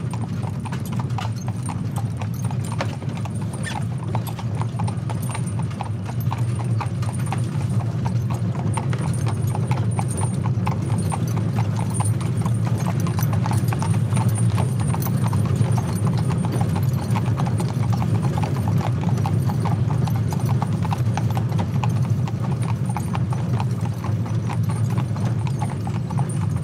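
Horses' hooves clip-clopping steadily on a tarmac road as a horse pulls a wagon along at a walk, over a steady low rumble.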